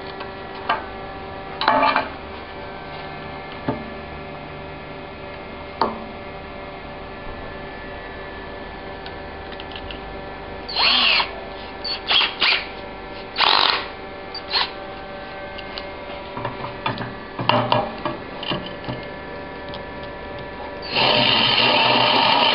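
Clicks and knocks of a plastic tool case and bits being handled, then brief bursts of a cordless drill while a diamond core bit is fitted in its chuck. From about 21 s in, the drill runs steadily as the diamond core bit starts cutting into a porcelain tile.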